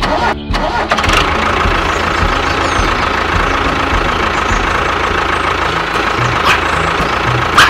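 A tractor engine running steadily with a regular low beat. Two short, sharp higher sounds come near the end.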